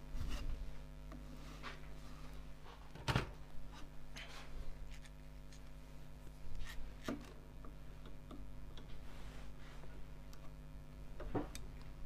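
Steady low hum of workshop machinery, with a few light knocks and rubs of tools being handled at the lathe as a bowl's wall thickness is checked; the sharpest knock comes about three seconds in.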